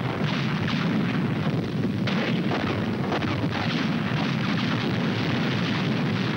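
Massed artillery barrage: many field guns firing at once, their reports running together into a dense, continuous rumble without a pause.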